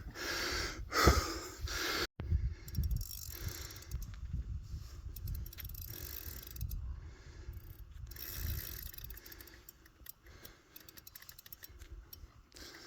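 Fishing reel being cranked, its gears and ratchet clicking fast as line is wound in with a small snapper on the hook.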